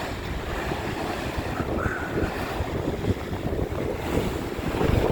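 Strong wind buffeting the phone's microphone over the rush of high-tide sea waves surging in, growing a little louder near the end.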